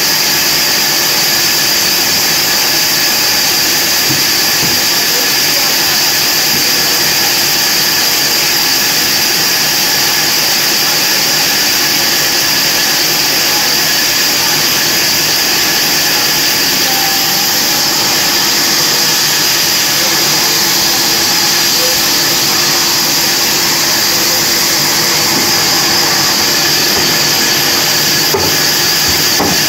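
Large wheel bandsaw for cutting logs, running steadily: an even, high-pitched whine and hiss that does not change.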